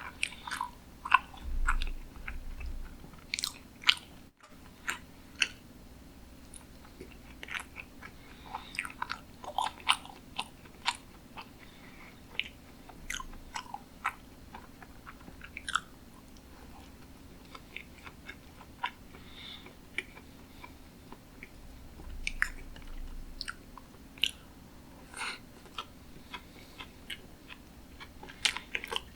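Close-miked chewing and wet mouth sounds of someone eating sushi: irregular short clicks and smacks, several a second at times and sparser at others.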